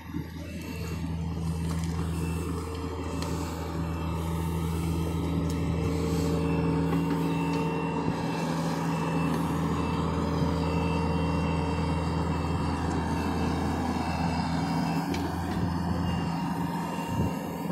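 John Deere excavator's diesel engine coming up in speed over the first couple of seconds and then running steadily under working load. An intermittent high-pitched tone sounds on and off over it.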